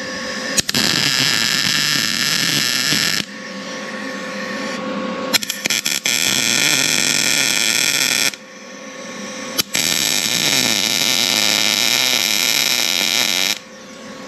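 Gas-shielded MIG welder arc crackling and hissing on steel in three runs of a few seconds each, with short pauses between them as the welds are laid.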